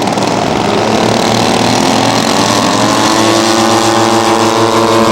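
Engines of a twin-engine radio-controlled scale model Beech D-18 throttling up for the takeoff run: the pitch rises over a couple of seconds, then holds steady at full power.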